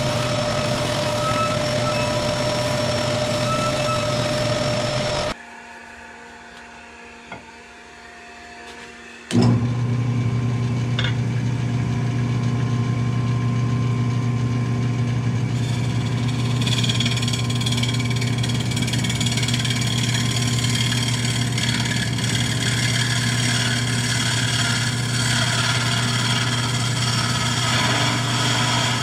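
Wood lathe running with a steady motor hum. The hum drops out abruptly about five seconds in, leaving a few seconds of quiet with one small click, then the lathe is running again. Higher, ringing tones join in later.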